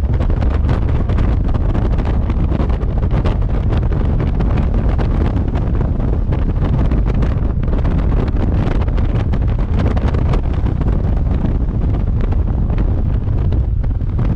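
Heavy wind buffeting the microphone: a steady, loud low rumble with no breaks and no horn tones.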